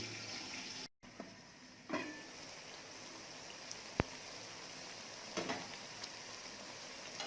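Onions and tomatoes frying in oil under a lid, a faint steady sizzle with a few soft pops and one sharp tick about four seconds in.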